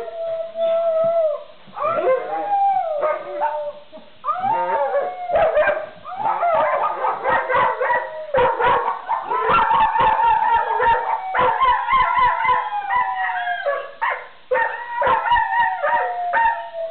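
Pet dogs howling together: long wavering howls that glide up and fall away, mixed with sharp barks and yips that crowd in from about five seconds in.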